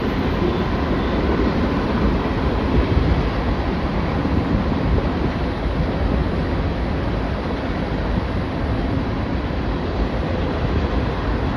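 Union Pacific mixed freight train passing at speed, its cars' wheels running on the rails in a steady, even noise.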